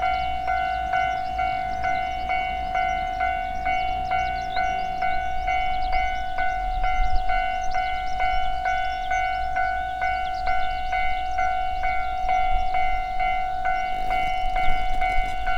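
Japanese railroad crossing alarm bell ringing steadily, a clanging tone repeating about twice a second, over a low rumble.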